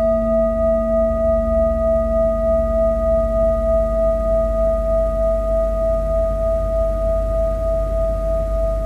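Large metal singing bowl ringing with several steady tones held together, the loudness wavering slowly and evenly.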